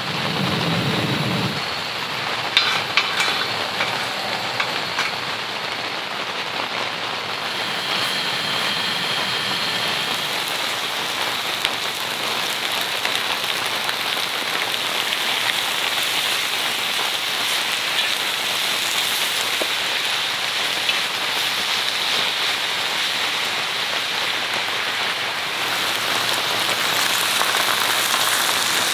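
Steady rain on the tent, mixed with pork and onions sizzling on a griddle over a gas camp stove. A few light clicks come about two to three seconds in.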